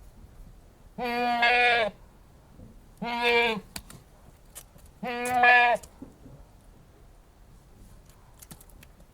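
Anglo-Nubian goat bleating three times, each call under a second long with a wavering, held pitch.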